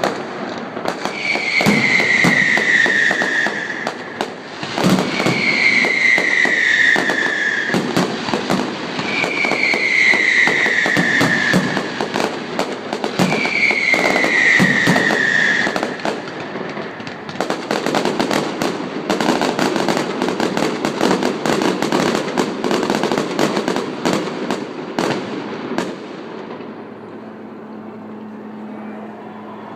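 Fireworks going off: dense crackling and popping, with four falling whistles about four seconds apart in the first half. The crackling dies away about 26 seconds in.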